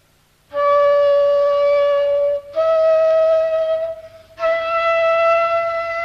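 Slow solo flute music. Long held notes start about half a second in: one note, then a slightly higher note that breaks off briefly and is held again.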